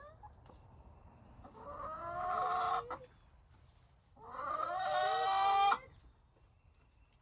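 Chicken giving two long, drawn-out calls a couple of seconds apart, each swelling louder and then cutting off sharply.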